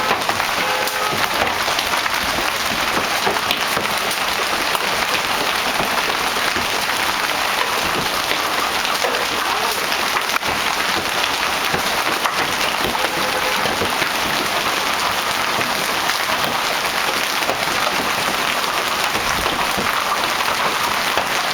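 Hailstorm: hail and heavy rain pelting down, a dense steady patter made up of many small sharp impacts.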